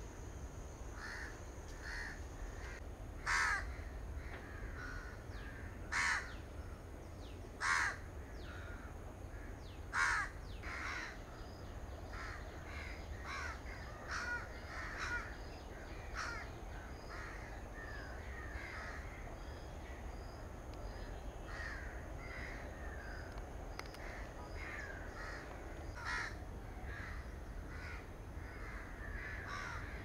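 Crows cawing: four loud caws in the first ten seconds, with fainter calls going on throughout. A steady high whine sounds for the first few seconds, over a low rumble.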